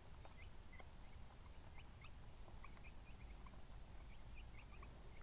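Faint, scattered peeping of a flock of young Cornish cross broiler chicks, short high chirps several times a second.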